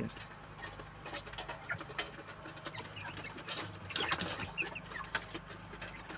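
A flock of broiler chickens clucking and cheeping softly, with scattered short clicks.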